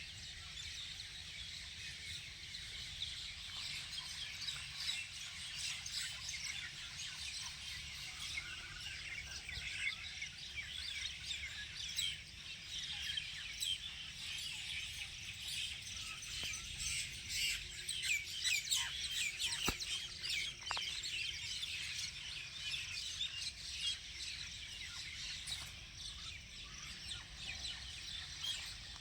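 Many birds chirping and calling at once in a dense, continuous chorus of short high chirps, busiest in the middle, over a steady low rumble.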